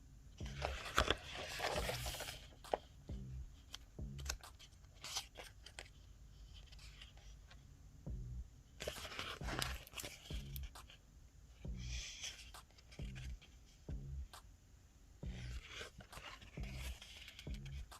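Sticker book pages being turned and handled: paper rustling and crinkling in several short bursts, with soft low bumps of handling between them.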